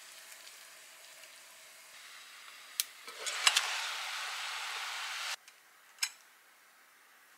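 A pot simmers faintly. About three seconds in there is a clink, and a much louder hiss of boiling water and steam from a pot under a steamer basket of dumplings as its glass lid is lifted. The hiss cuts off suddenly, and a sharp click of chopsticks on the steamer follows.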